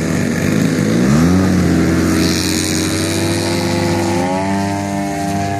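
Engine of a 168-inch Aero Works Carbon Cub radio-controlled plane throttling up for its takeoff roll: the pitch rises about a second in, holds steady, then climbs again near the end as the plane lifts off.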